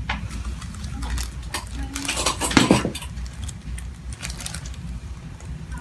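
Spine joints cracking during a chiropractic adjustment: a string of sharp clicks and pops, the loudest about two and a half seconds in.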